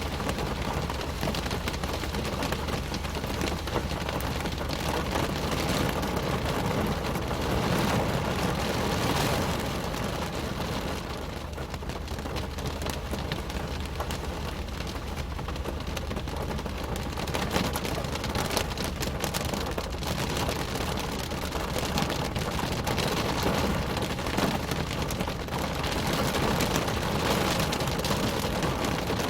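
Rain pattering densely on a car's roof and windows, heard from inside the cabin, with a steady low rumble beneath. It eases slightly for a few seconds in the middle, then picks up again.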